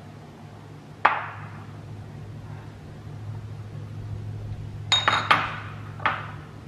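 Ceramic and glass kitchen bowls clinking, with a metal spoon in the mixing bowl: one sharp clink about a second in, a quick run of three or four clinks around five seconds, and one more a second later. A low steady hum runs underneath.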